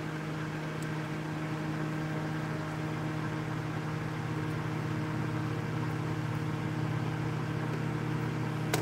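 Steady low machine hum with faint steady tones above it, a faint tick about a second in and a short click near the end.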